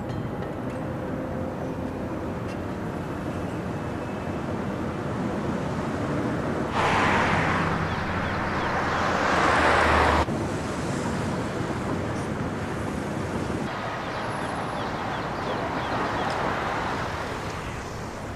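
Car driving on a road: steady road and tyre noise, with a louder rush of a car going by from about seven seconds in that cuts off suddenly about ten seconds in.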